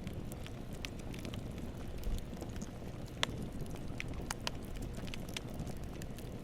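Wood campfire burning: a steady low rumble of flames with irregular sharp crackles and pops of burning wood, one louder pop about three seconds in.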